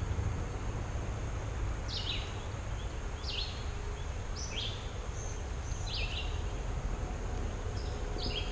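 A bird calling over and over, each call a short, sharply falling note, repeated about every second or so, over a steady low rumble.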